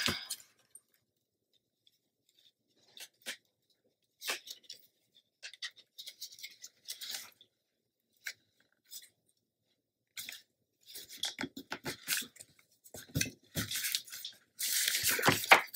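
Paper handling: scattered soft rustles and taps as a patterned paper strip is laid onto black cardstock and pressed down while the glue is still wet, growing busier in the last few seconds with a denser rustle near the end.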